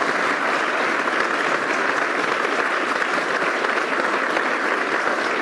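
Audience applauding steadily: dense, sustained clapping from a large crowd.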